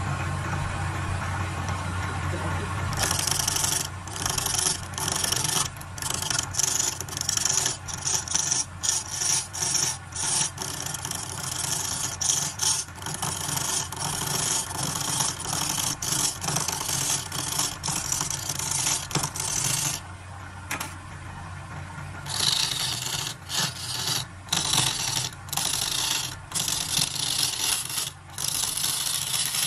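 Wood lathe running with a steady motor hum while a hand-held turning tool cuts into the spinning wooden blank, a loud scraping in rapid, uneven strokes. The cutting starts about three seconds in and breaks off for about two seconds around twenty seconds in before going on.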